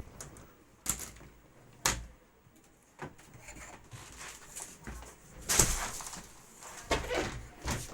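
A few sharp knocks and clicks, about a second apart, then a busier stretch of rustling and clattering, loudest a little past the middle: objects being handled.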